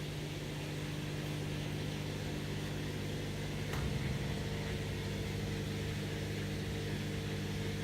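LG top-load washing machine's drain pump running with a steady hum, pumping out the water as the first stage of the spin cycle. A short knock about four seconds in.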